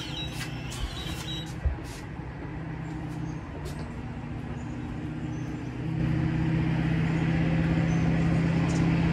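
DJI Neo mini drone's propellers humming as it hovers close by, a steady buzz made of several low tones. It shifts pitch a little and gets louder about six seconds in, with a few light knocks in the first two seconds.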